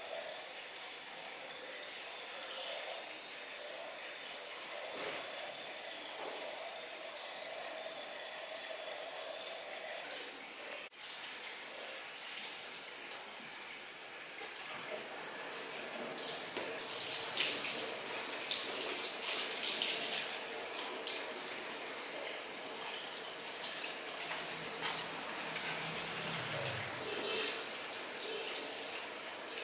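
Water running at a salon shampoo basin. From about halfway in, a handheld shower sprayer sprays onto the client's hair and face, louder and hissier, with splashing.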